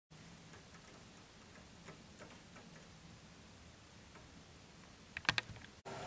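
Great tit tapping on a windowsill where sunflower seeds lie: faint scattered ticks, then a quick cluster of louder sharp taps about five seconds in.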